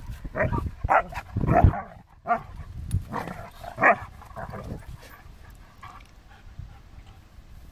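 Siberian huskies barking and yipping at each other in short bursts while play-fighting. The calls come thick for the first five seconds, then stop.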